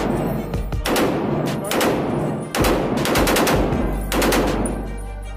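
Automatic rifle fire in several short bursts of rapid shots, roughly a second apart, over background music.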